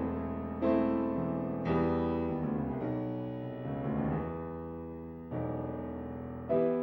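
Piano music: slow chords struck one after another, each held and left to fade before the next.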